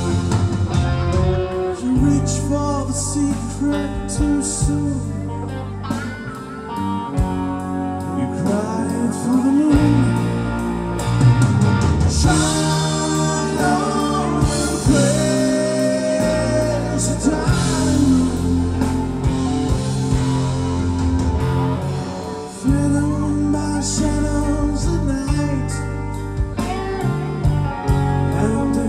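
Live rock band playing through a PA: electric guitars, bass and drums, with a sung vocal line.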